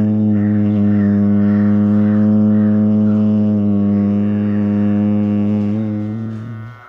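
A person's low, steady hum held on one pitch through a single long exhale in bhramari (bee breath) pranayama, trailing off and stopping near the end.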